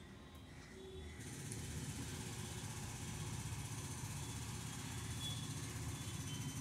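Steady low rumble of background engine or traffic noise, growing a little louder about a second in.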